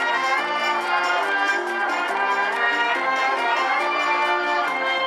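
High school wind band playing live: brass instruments carry a melody of sustained notes over a steady percussion beat.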